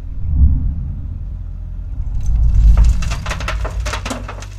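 Excavator working with a loud low rumble, then from about halfway a dense crackling of sand and stones pouring out of the bucket onto a pile.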